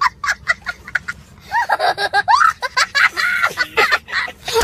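A young child laughing hard: a quick run of short laughs, then longer high squeals of laughter that rise and fall.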